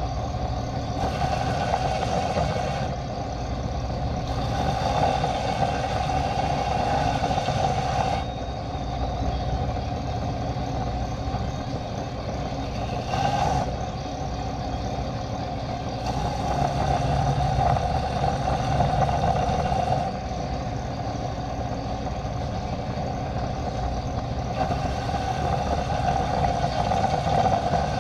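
A motor-driven shop machine running steadily, with several stretches where a brighter, harsher hiss rises and then drops back.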